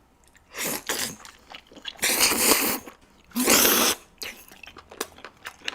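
Close-miked eating of a chewy giant octopus leg with black-bean-sauce noodles. There are three loud, noisy mouthfuls, then a stretch of softer wet chewing clicks.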